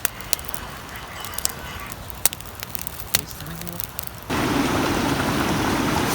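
Campfire wood crackling, with irregular sharp snaps and pops. About four seconds in it cuts suddenly to the steady rushing of a river flowing.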